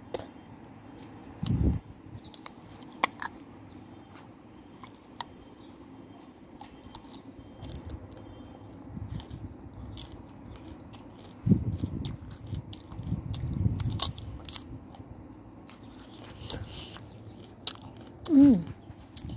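Someone chewing and crunching fruit close to a phone microphone, with scattered clicks and a few low knocks from the phone being handled. About 18 seconds in there is a short sound that falls in pitch, the loudest moment.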